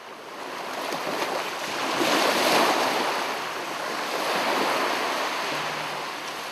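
Ocean surf washing and breaking, swelling to its loudest about two and a half seconds in and then slowly easing off.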